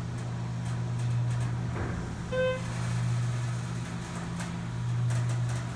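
Schindler hydraulic elevator's pump motor running with a steady low hum as the car travels up. A short electronic beep sounds about halfway through.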